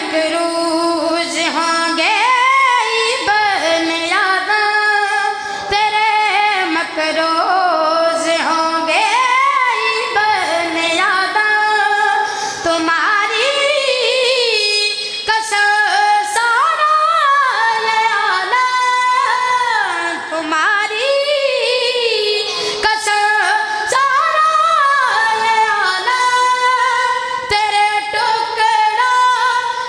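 A solo high-pitched voice singing a devotional song, with long, ornamented notes that glide up and down.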